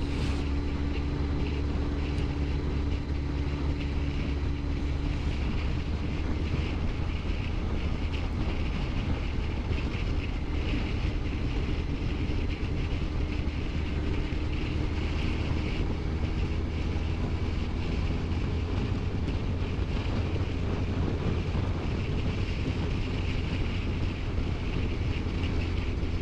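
Honda CBR1100XX Blackbird's inline-four engine running at a steady pitch while the motorcycle is ridden, with some wind noise on the microphone.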